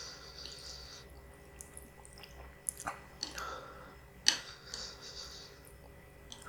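Close-miked chewing and wet mouth sounds of someone eating spicy instant noodles, with a few sharp clicks; the loudest click comes about two thirds of the way in.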